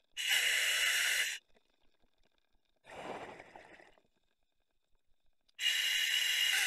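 A scuba diver breathing through the demand valve of a full face mask: two inhalations, each about a second of hiss with a steady whistle-like tone, and a softer exhalation between them.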